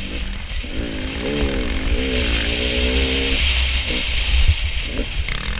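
Dirt bike engine revving up and down while ridden, its pitch rising and falling several times in quick succession over the first few seconds, over a low rumble.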